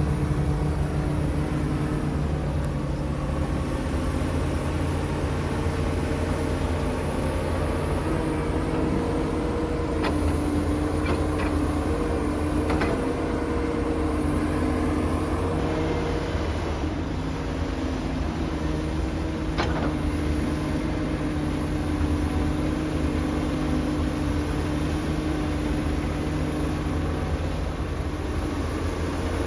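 Komatsu PC450-8 excavator's six-cylinder diesel engine running steadily as it works, its pitch shifting a little now and then. A few sharp knocks come through around the middle.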